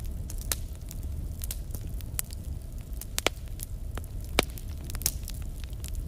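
Fire crackling steadily, with scattered small pops and two sharper, louder pops a little past halfway, over a steady low rumble.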